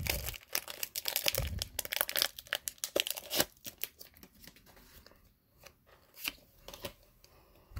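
Foil wrapper of a Pokémon Lost Thunder booster pack crinkling and being torn open by hand. After about three and a half seconds it turns to fainter, scattered clicks as the cards are pulled out and handled.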